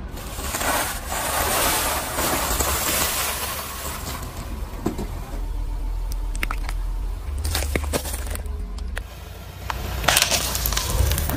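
Car tyres rolling over and crushing objects. A dense crackling crunch for the first few seconds, then a series of sharp cracks and snaps, and a louder burst about ten seconds in, over the low rumble of the car.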